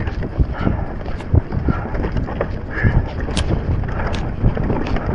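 Wind buffeting a helmet or body-mounted camera microphone on a fast mountain bike descent, with frequent sharp knocks and rattles from a Transition Spur mountain bike over rough trail, and the rider's hard breathing.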